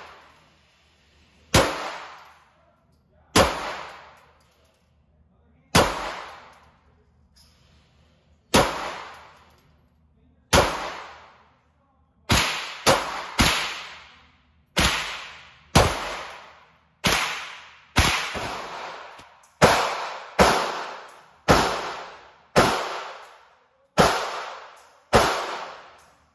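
A .22 LR firearm fired about eighteen times in single shots. They come one or two seconds apart at first and about once a second in the second half, each crack followed by a long echo.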